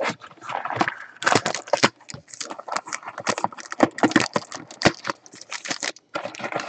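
Hands opening and handling a cardboard trading card box: a quick, irregular run of clicks, scrapes and rustles.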